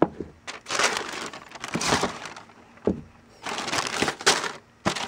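White tissue wrapping paper rustling and crinkling as sneakers are lifted out of a shoe box, in two stretches of handling with a soft knock between them.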